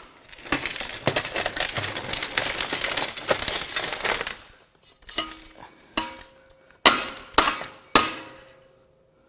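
Broken metal fragments from the oil pan of a blown-up Dodge 8.0L Magnum V10 pour out of a metal parts-washer basket onto a steel table in a long rattling clatter. This is followed by five sharp metallic knocks from the basket being knocked against the table, each ringing on briefly.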